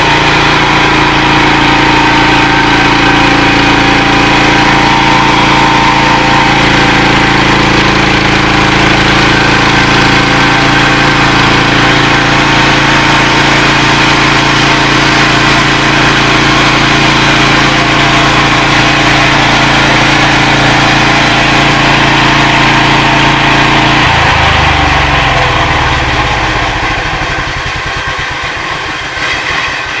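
Small gasoline engine driving a portable band sawmill runs steadily under load as the band blade saws through a tree stump. About 24 seconds in, the engine winds down, its pitch falling over several seconds.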